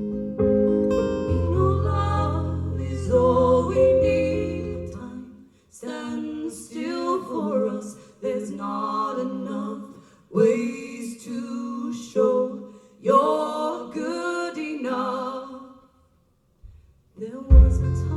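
Live acoustic band music: strummed acoustic guitar with singing. The low bass notes drop out about five seconds in, leaving choppy, accented guitar strums under the voice. The music stops briefly near the end, then comes back in with the low end.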